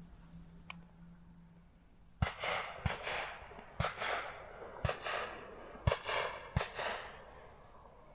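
A series of six sharp bangs, the first about two seconds in, irregularly spaced over about four and a half seconds. Each is followed by a short hissing tail.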